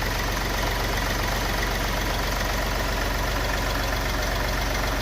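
Diesel car engine idling with a steady, rapid, even clatter.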